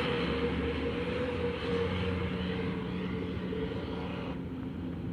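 Tour bus's diesel engine running as the bus pulls away, its sound slowly fading; the higher hiss drops off about four seconds in.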